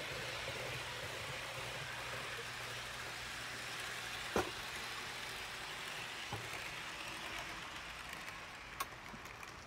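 H0 model diesel locomotive (Fleischmann BR 221, DC analog) running on the layout track: a steady whirring hiss of motor and wheels over a low hum. There is a sharp click about four seconds in and a couple of fainter ones later. The sound fades near the end.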